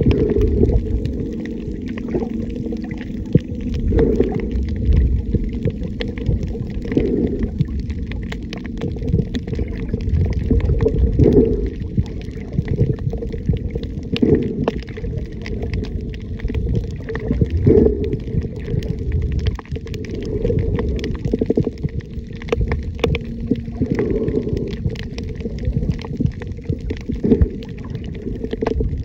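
Muffled underwater water noise from a microphone held underwater: a low, continuous rumble and sloshing that swells every few seconds, with scattered faint clicks and crackle.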